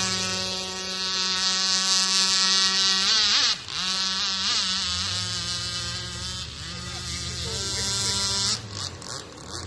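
Aeromarine H45 RC gas boat with a custom modified two-stroke gasoline engine, running at high revs with a steady, high buzzing note. The pitch wavers and dips about three seconds in, then holds steady again before dropping away near the end as the throttle eases off.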